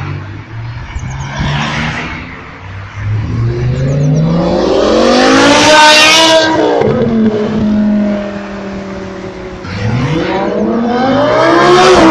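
Performance car engines accelerating hard past on the road. A silver BMW estate revs up to a peak about six seconds in, its pitch drops at a gear change, and it holds steady as it pulls away. Near the end a second engine revs up again, with a white Audi R8 passing.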